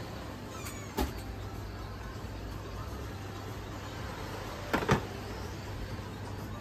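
A steady low rumble of wind on the microphone, with a sharp knock about a second in and a louder double knock near five seconds as a bartender handles bottles on a bar counter.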